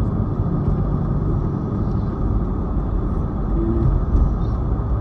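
Steady low rumble of a car on the move: engine and tyre noise.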